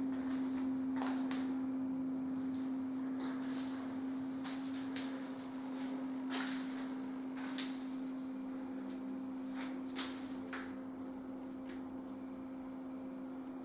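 A steady low hum at one unchanging pitch, with scattered soft clicks and knocks.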